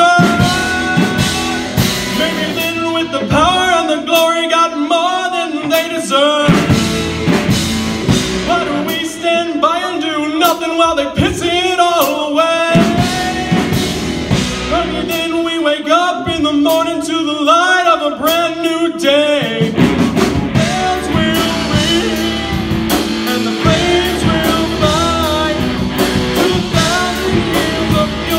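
Rock band playing live: electric guitars and drums with a male voice singing over them. About twenty seconds in, the singing stops and the guitars and drums carry on.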